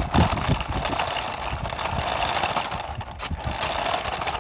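Small RC car's electric motor and gears whirring steadily as it drives, with irregular low knocks underneath.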